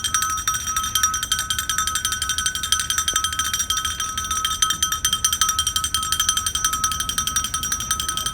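A metal ritual bell shaken rapidly and without pause, its ringing tone held steady under a fast, even patter of strikes.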